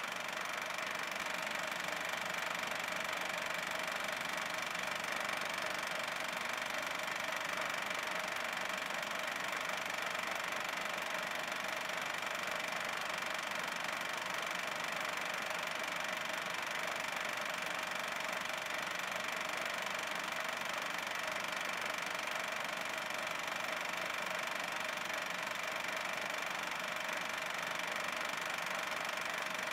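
Film projector running: a steady mechanical whirr with a constant high tone, the noise of the machine that played back this silent double-8 home movie.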